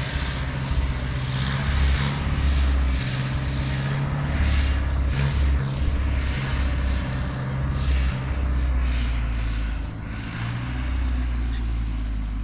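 A vehicle engine running steadily, with a deep low drone under a rushing noise. It eases off slightly about ten seconds in.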